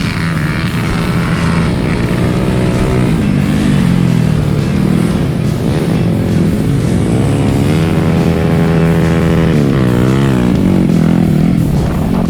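Old trail motorcycle engines running and revving, their pitch wavering up and down in the second half.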